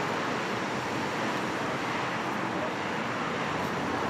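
Steady street traffic noise: cars running and passing slowly.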